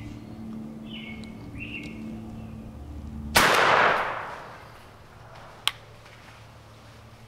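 A turkey-hunting shotgun is fired once about three seconds in, the blast echoing through the woods and fading over about a second and a half. Before the shot, birds chirp in short falling notes. A single sharp click follows about two seconds after the shot.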